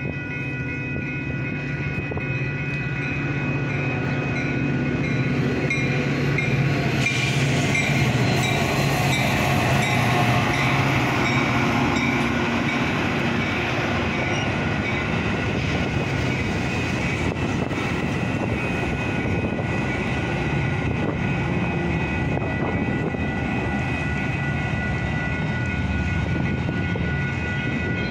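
Metra bilevel commuter train rolling through a grade crossing, growing louder over the first several seconds as it arrives and then running steadily past. The crossing's warning bell rings throughout as a steady high ringing.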